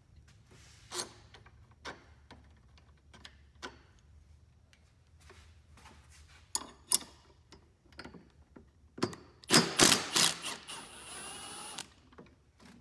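Light clicks and knocks of tools and parts being handled, then a cordless Milwaukee drill-driver runs for about two seconds near the end, driving a bolt on a snowmobile's steering post mount while a wrench holds the other side.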